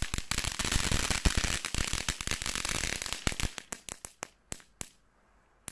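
A small garden fountain firework, from a Nico Summer Fountains set, burning with a dense crackle that starts abruptly and thins out after about three and a half seconds into scattered single pops, with one last pop near the end.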